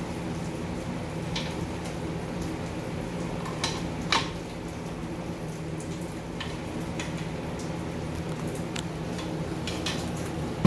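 Scattered light metallic clinks and taps of tools and parts being handled, the loudest about four seconds in, over a steady low machine hum.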